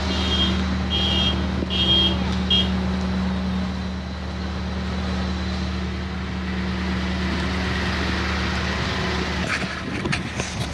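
Toyota Tundra's 5.7-litre V8 idling with a steady low hum. A high chime repeats for the first two or three seconds, then stops.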